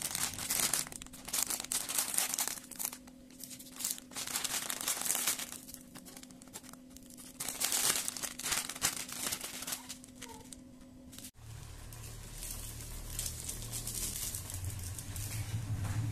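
Plastic instant-noodle packets crinkling and tearing in irregular bursts as they are handled and opened. About eleven seconds in the sound cuts to a steady low rumble from the wok on the stove.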